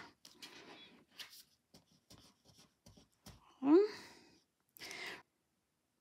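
Black cardstock being folded and pressed down by hand: faint paper rustles and light taps. About halfway through, the crafter makes one brief rising vocal sound.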